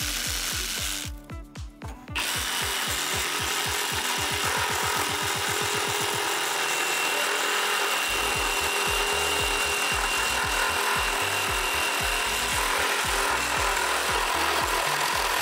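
Ryobi PSBRS01 18-volt brushless one-handed reciprocating saw cutting wood. For the first two seconds it runs in short on-off bursts, then it runs steadily through the cut.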